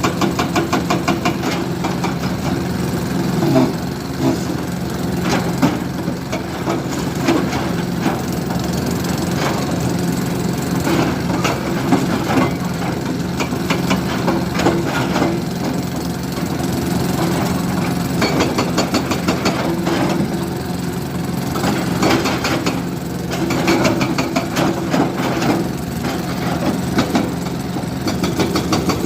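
Diesel engine of heavy construction machinery running steadily, with frequent short knocks and clanks of working equipment over it.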